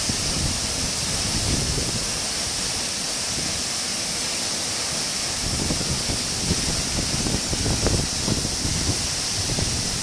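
Waterfall pouring into a rocky plunge pool: a steady, even rush of falling and splashing water. From about halfway through, gusts of wind buffet the microphone with low rumbles.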